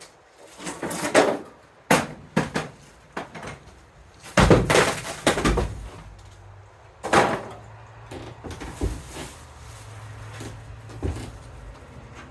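A string of irregular knocks, bangs and scrapes of hard objects being handled, with one heavy thud about four and a half seconds in, after which a low steady hum sets in.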